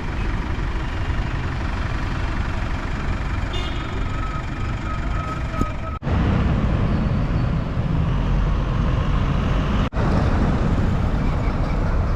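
Street traffic noise: engines of passing trucks and cars over a constant low rumble. The sound drops out abruptly twice, about six and ten seconds in, and is louder after the first drop-out.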